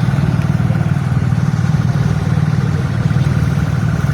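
A motor vehicle engine idling close by, a steady, even low running.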